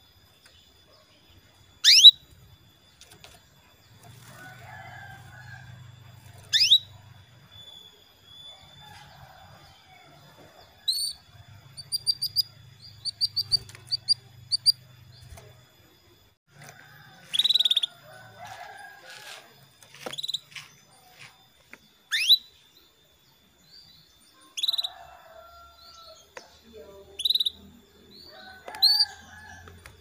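Female domestic canary calling for a male: single sharp, downward-sweeping call notes every few seconds, with a quick run of short chirps about a third of the way in. A faint steady high tone runs underneath.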